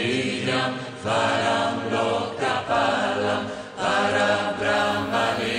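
Mantra-style chanting: voices singing held notes in short phrases, over a steady low drone.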